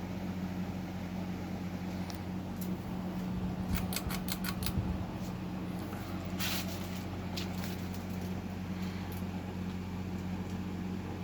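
Windmere ceiling fan running with a steady motor hum, with a quick run of clicks around four seconds in and a short rattle about six and a half seconds in.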